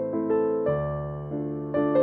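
Background instrumental music: a gentle melody of struck notes, two or three a second, each fading away.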